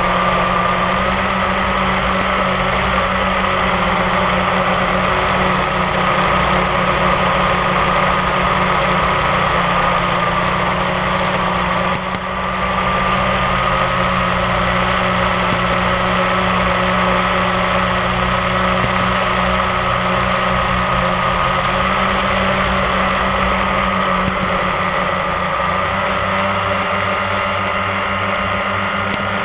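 A steady mechanical drone, a low hum with a higher whine above it, that dips briefly about halfway through.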